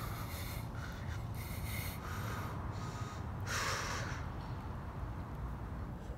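A young man's heavy breathing and sniffing, with several short breaths and one louder breath a bit over halfway through, over a steady low background rumble.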